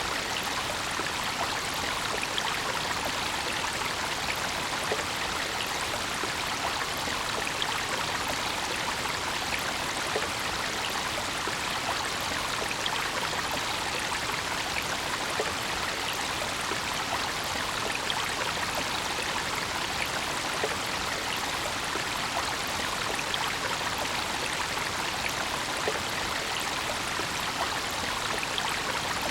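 A brook flowing steadily over stones, a continuous rushing and babbling with small splashes.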